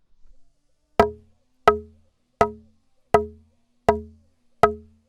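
Metal hammer striking thick wood: six even blows about three-quarters of a second apart, each a sharp knock with a short pitched ring.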